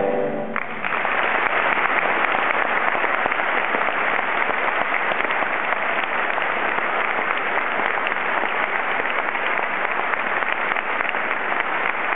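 The last sung chord of a boys' choir dies away within the first second, then a concert audience breaks into steady applause.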